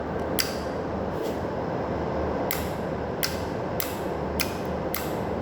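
Steady electrical hum from a running motor control panel, with about seven sharp clicks at uneven intervals, typical of contactors and switches operating.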